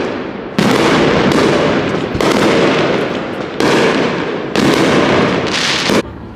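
Aerial fireworks display: about four loud shell bursts, roughly a second or a second and a half apart, each booming and then trailing off. The noise drops away suddenly near the end.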